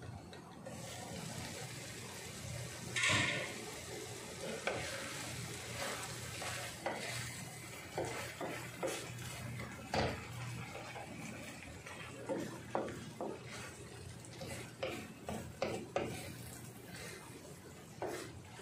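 A wooden spoon stirring thick risotto in a metal pan, with repeated short scrapes and knocks against the pan over a steady simmering sizzle. There is a louder clatter about three seconds in as the pan lid is taken off.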